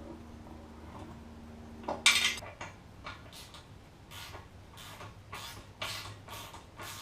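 Hand-tool work on metal scooter parts: one sharp metallic clink, then a steady run of rasping strokes, about two a second.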